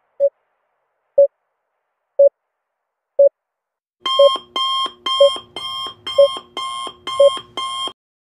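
Quiz countdown-timer sound effect: a short beep once a second for four beats, then a louder, ringing alarm pattern that repeats once a second for about four seconds and cuts off shortly before the end.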